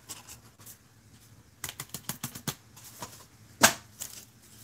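Flimsy paper plates being handled and set down, a run of light clicks and rustles with one sharper knock about three and a half seconds in.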